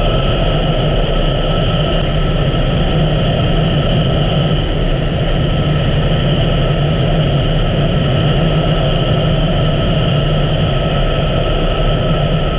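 2017 Honda Africa Twin's parallel-twin engine running at a steady cruise, under loud rushing wind noise on the microphone.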